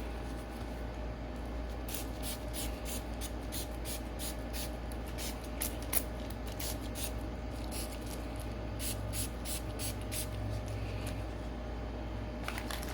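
Hand spray bottle being pumped in a long run of quick, short squirts, about three a second. The spraying starts about two seconds in and stops shortly before the end.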